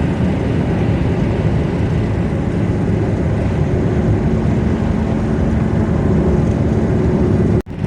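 Daewoo Matiz driving at road speed: steady engine and road noise with a faint constant drone. The sound drops out for an instant near the end.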